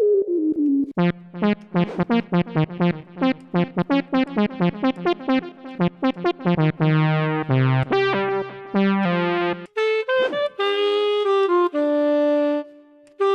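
Diosynth electronic wind synthesizer playing its preset sounds: a tone sliding down in pitch at the start, then a fast run of short, detached notes, then a switch to a different patch about ten seconds in with a few longer held notes.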